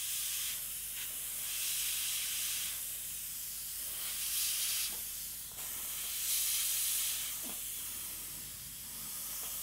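Airbrush spraying paint through a texture template: a hiss of air that swells and eases in stretches of a second or two as the trigger is worked, over a steady low hum.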